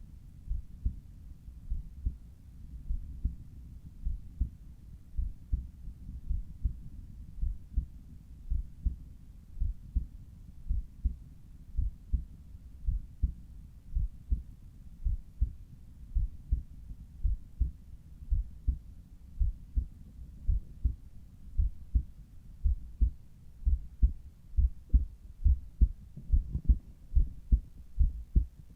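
Human heart sounds heard through a Littmann Cardiology IV stethoscope at the cardiac apex: a steady, regular lub-dub rhythm of low thuds, growing louder in the last third.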